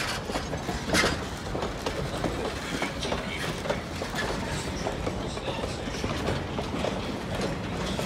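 Vintage passenger coaches rolling slowly past, their wheels clicking and knocking over the rail joints, with one louder clank about a second in.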